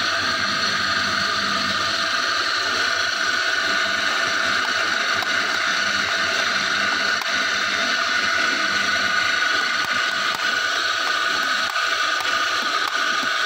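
Electric coffee grinder running steadily, grinding espresso beans.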